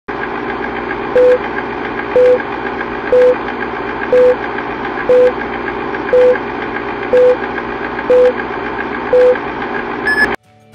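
Film-countdown leader sound effect: the steady clatter of an old film projector with a short beep every second, nine beeps in all, then a brief higher beep just before it cuts off suddenly.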